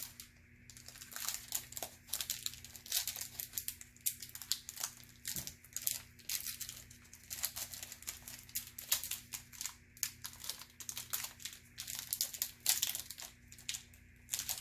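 Foil trading-card pack wrapper crinkling and tearing as it is worked at by hand to get it open, a continuous run of short crackles.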